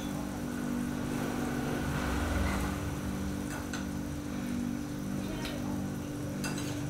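Pot of pork rib soup at a rolling boil on the stove, bubbling over a steady low hum, with a few faint clicks near the end.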